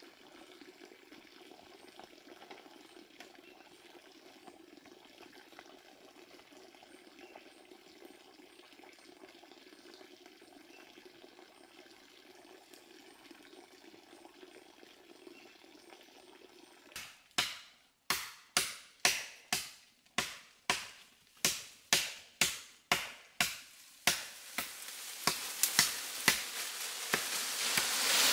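Machete chopping wood: sharp blows about two a second begin after a long stretch of faint steady background noise. Near the end the blows go on over a louder rustling noise.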